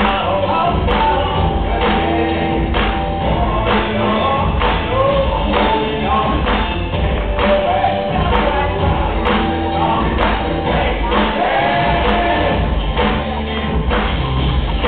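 Loud recorded music with a singing voice over a steady drum beat of about two hits a second, played for a breakdance routine.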